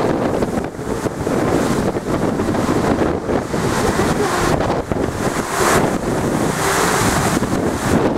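Storm waves crashing against a sea wall, a continuous rush of surf with strong wind buffeting the microphone; the rush swells louder about two thirds of the way through.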